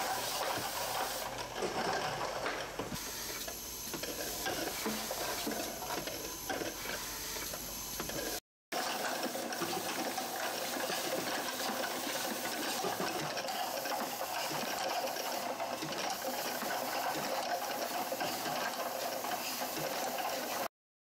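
Bottle unscrambler and labeler running, a steady busy clatter of many small ticks and rattles from the mechanism and plastic bottles. The sound cuts out for a moment about eight seconds in and again just before the end.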